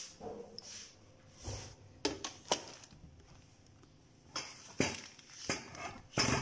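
About half a dozen sharp knocks and clicks from handling dishes and cookware, the loudest near the end.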